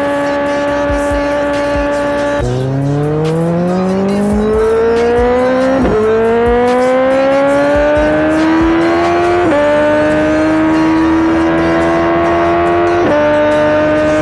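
BMW K1300R motorcycle's inline-four engine, at first holding a steady speed. About two and a half seconds in the pitch drops, then it pulls hard with the pitch rising, through three upshifts that each bring a short dip before the rise resumes.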